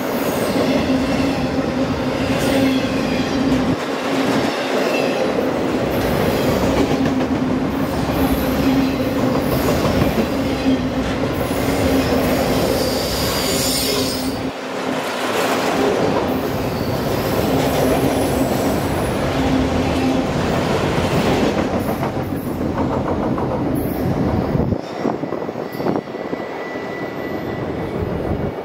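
A train rolling past, wheels clattering over the rail joints, with high wheel squeal in short spells. A steady hum runs under it for most of the time, then stops about two-thirds of the way through.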